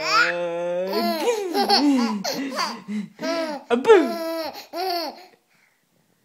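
A baby laughing in a run of short, pitched bursts, tickled by a sneeze. It stops abruptly about five seconds in.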